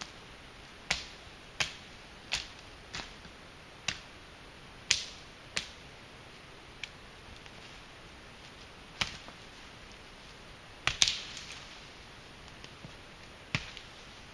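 WC Knives 'Prepper' chopper blade hacking through small branches while clearing a trail: about a dozen sharp chops at an uneven pace, the loudest about eleven seconds in with a short rustle after it.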